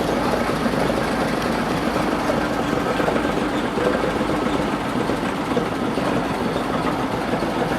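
A heavy vehicle's engine running steadily at a constant level, giving a continuous dense mechanical noise.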